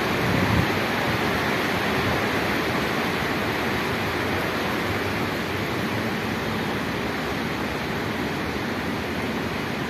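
Steady rain falling over an open stadium, an even hiss.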